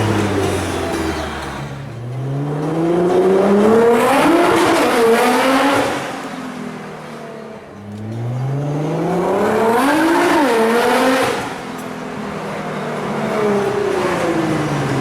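Twin-turbo V6 of a tuned Nissan GT-R with a titanium exhaust, pulling hard twice: the engine note climbs steadily through each gear with quick dips at the upshifts, then falls away between pulls. A short sharp rev blip comes at the very end.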